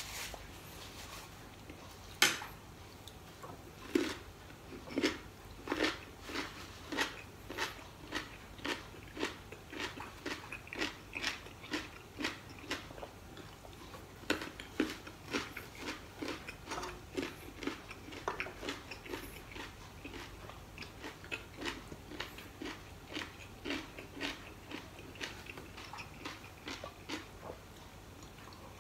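Close-up crunching of a person chewing crispy food, a steady rhythm of about one and a half crunches a second with a few sharper bites.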